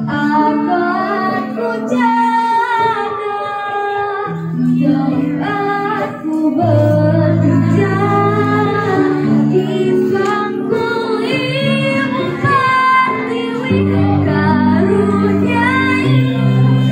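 A schoolgirl singing a melody into a microphone over an instrumental accompaniment of held chords that change every second or two.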